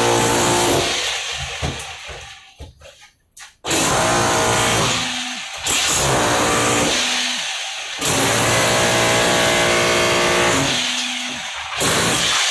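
SWT 1900-watt electric rotary hammer chiselling into a concrete and plaster wall. It runs in several bursts of one to four seconds with short pauses between, and cuts in and out in a faltering stretch about one to three seconds in.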